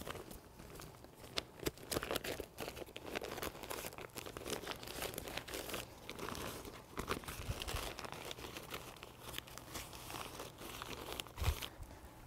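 Reflective mummy bag from a North American Rescue hypothermia kit crinkling and rustling as it is handled and fastened around a patient, with irregular crackles throughout and short ripping rasps from its Velcro closure.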